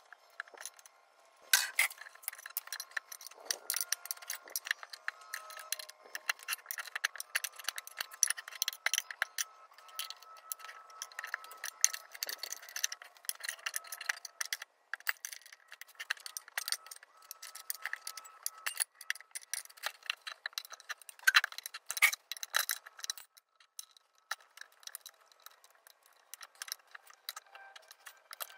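Steel tire spoons and locking pliers clinking, tapping and scraping against a steel mower wheel rim as a tyre bead is pried onto it, making many irregular metallic clicks with short rings. A louder cluster of clanks comes a little past the middle.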